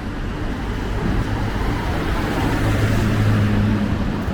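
Street traffic, with a motor vehicle's engine hum growing louder as it passes, loudest about three seconds in.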